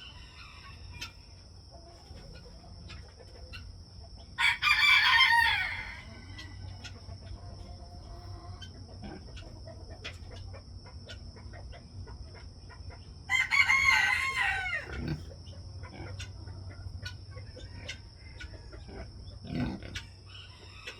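Rooster crowing twice, about four seconds in and again about thirteen seconds in, each crow about a second and a half long, the second trailing off downward. Hens cluck faintly in between.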